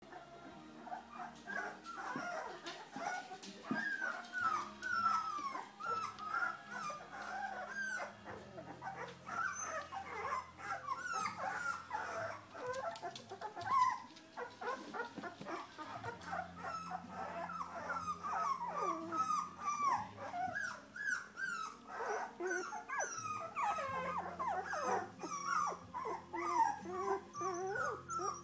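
Litter of two-and-a-half-week-old Labradoodle puppies whimpering and squealing, many short high whines overlapping without a break.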